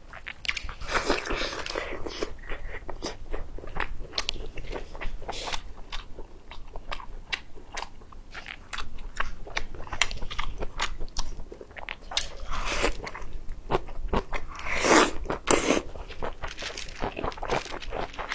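Close-miked eating: biting and chewing of braised octopus pieces, a dense run of small clicks and crunchy mouth sounds with a few louder bites along the way.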